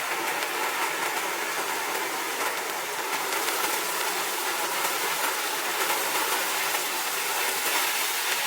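Consumer ground firework fountain spraying sparks: a steady, loud hiss with fine crackling throughout.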